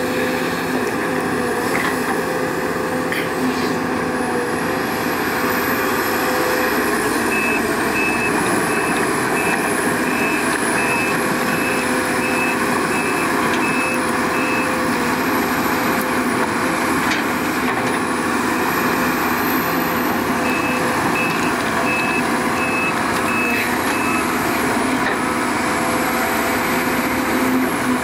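Heavy diesel machinery, an excavator working with dump trucks, running steadily under load with a high wavering whine. A reversing alarm beeps about twice a second in two spells: a longer one starting about a quarter of the way in, and a shorter one about three quarters of the way in.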